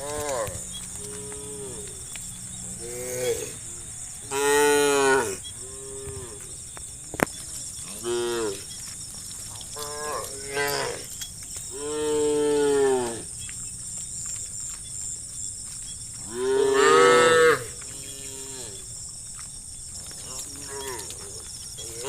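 Several cows mooing again and again as the herd is driven along, with long, drawn-out calls of different pitches, some overlapping. The loudest calls come about four seconds in, about twelve seconds in and about seventeen seconds in, over a steady high-pitched hiss.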